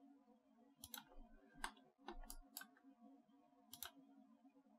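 Computer mouse clicking: about half a dozen faint, sharp clicks, some in quick pairs, over a low steady hum.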